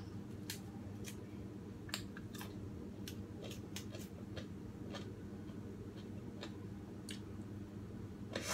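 Small crisp clicks and snaps at irregular spacing, about two a second, the loudest near the end, as fingers peel and break apart a small fresh vegetable, over a steady low hum.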